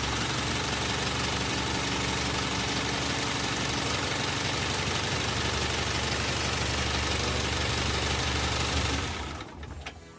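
Isuzu 4HF1 four-cylinder diesel engine idling steadily just after starting at once, a sign that its hard-starting fault is cured by the new fuel pump. It is shut off about nine seconds in and winds down.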